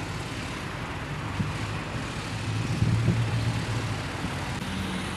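Street traffic: motor vehicle engines running, with a steady low hum that grows louder for a moment about three seconds in as a vehicle passes close by.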